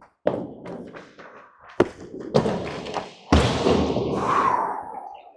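Several heavy thumps and knocks close to the microphone, then a loud scraping rush that trails off near the end.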